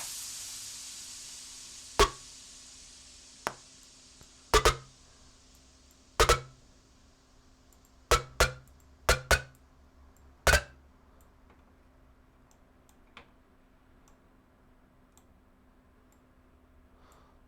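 Computer mouse clicking: about ten short sharp clicks, several in quick pairs like double-clicks, thinning out after about eleven seconds. At the start, the tail of stopped electronic music fades away.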